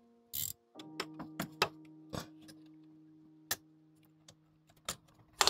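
Scattered sharp clicks and clinks of hand tools and metal parts as new studs and timing-belt rollers are fitted to the engine, about ten in all, the loudest just before the end. Under them, soft background music of held chords, changing about a second in.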